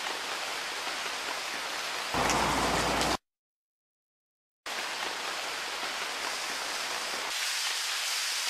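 Steady hiss of heavy rain falling on a car and wet pavement. About two seconds in it grows louder with a low rumble underneath, then cuts off dead for over a second before the rain starts again.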